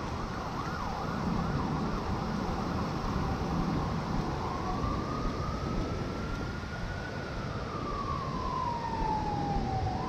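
Parrot Swing mini drone's propellers whining steadily, the pitch sliding slowly up and then down as the motors work against the wind, over a hiss of wind and surf.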